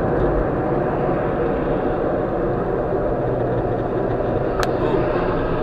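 Steady road and engine noise of a moving car, heard from inside the cabin through a dashcam's microphone, with one brief click about four and a half seconds in.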